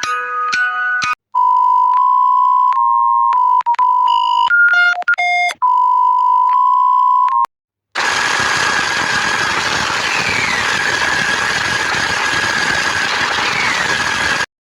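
A string of electronic alert signals. First a short chime melody, then a steady high beep-tone broken by short gaps and a few quick higher beeps, and after a brief silence a loud hiss with a steady whistle and two short falling tones through it.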